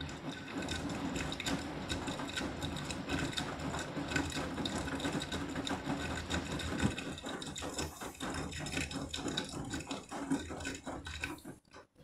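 Beko front-loading washing machine drum turning during a sudsy rinse: water and suds sloshing and the load tumbling with many clicks over a steady motor hum. The drum stops near the end.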